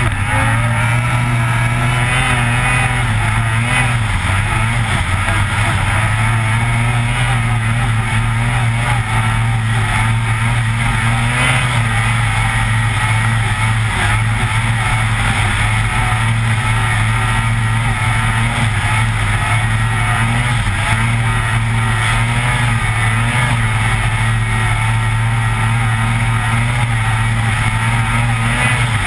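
Lynx Rave RE 600 snowmobile's two-stroke twin engine running hard at speed. It is loud and steady, with its pitch wavering up and down as the throttle changes.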